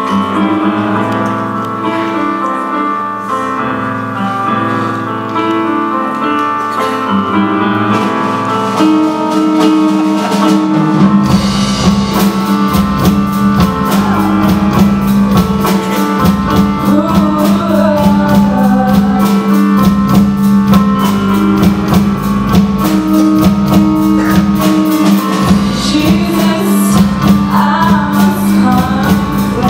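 Live band playing a slow song with a woman singing: sustained keyboard and bass notes at first, then the drum kit with cymbals comes in about eleven seconds in and the full band plays on.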